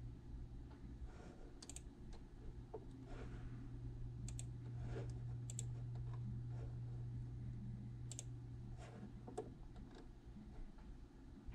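Scattered sharp clicks at a computer desk, one every second or two, over a steady low hum.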